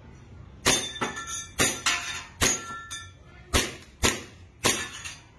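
EMG Salient Arms gas blowback airsoft pistol running on green gas, fired semi-automatically: about eight sharp shots in an uneven string, each with the snap of the slide cycling.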